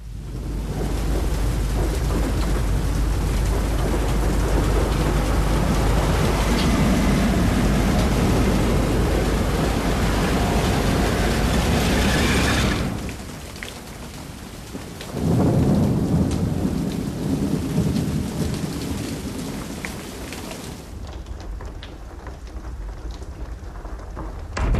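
Heavy rain with rolling thunder. The storm rumbles loudly through the first half, eases briefly, and swells again past the middle before settling to steady rain near the end.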